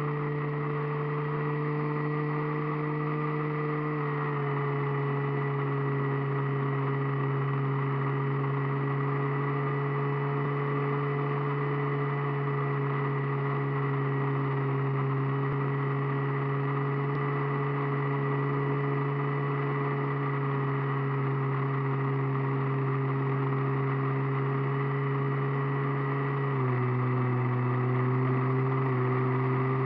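Radio-controlled model airplane's motor and propeller heard from a camera mounted on the plane: a steady droning hum that steps down a little in pitch about four seconds in and again near the end.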